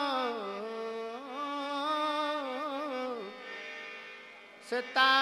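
Live Sindhi ghazal music: a melodic line with many overtones glides down, winds through wavering ornaments and fades after about three seconds, then a new held note comes in strongly near the end.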